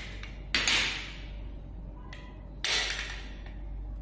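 Two sharp plastic clacks about two seconds apart, each trailing off briefly, as the cover is taken off a small plastic wall-panel LED strip controller by hand.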